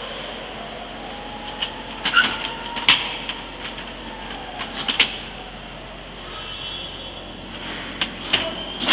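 Metal clanks and knocks from work at the back of a semi-trailer in a loading-dock doorway, a cluster about two to three seconds in and again about five seconds in, over a steady hum of dock machinery.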